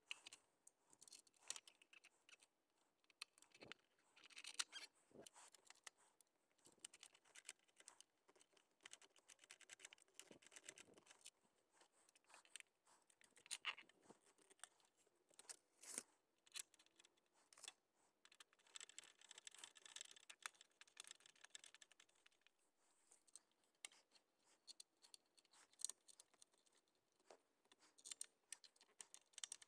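Faint, rapid run of small clicks, taps and scrapes from hands working metal mount parts and a screwdriver, a few sharper clicks standing out.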